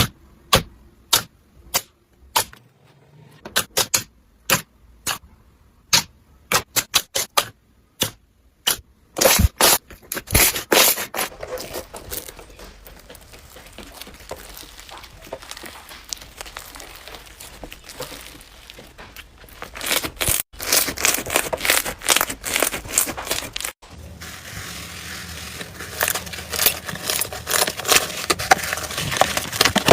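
Slime being squeezed and worked by hand, making a quick run of sharp clicks and pops, then dense crackling, with two sudden breaks in the sound in the last third.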